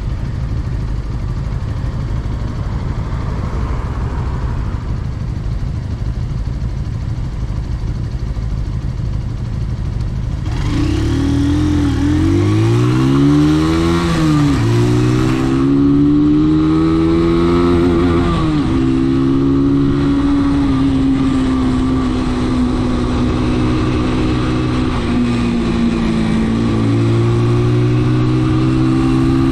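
Brixton motorcycle engine under way: a low rumble for about the first ten seconds, then the engine note climbs and drops twice as the bike accelerates through gear changes, and settles to a steady cruising pitch.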